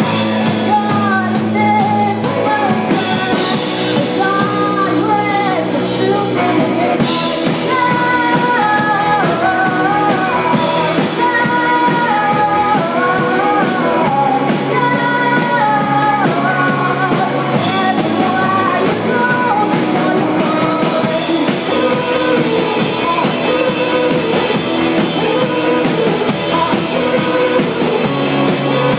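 Rock band playing live: electric guitars and drum kit with a sung vocal line; the singing stops about three-quarters of the way through and the band plays on.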